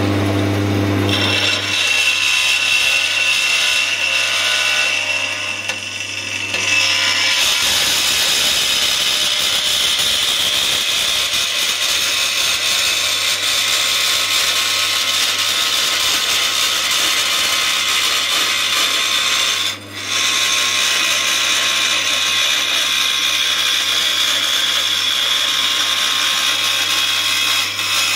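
Emco BS-3 band saw with a metal-cutting blade running and sawing thin steel plate. A thin high whine in the first few seconds gives way, about seven seconds in, to a steady hiss of the cut over the motor's low hum, broken once briefly about twenty seconds in.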